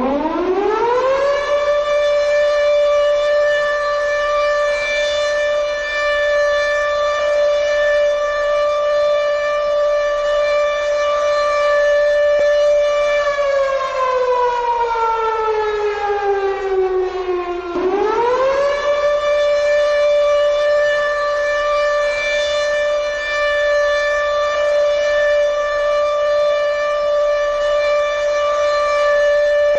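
Civil defense siren sounding an evacuation alarm: a loud wail that winds up to a steady pitch, holds for about twelve seconds and winds partway down. It then rises back up sharply, holds again, and begins to fall near the end.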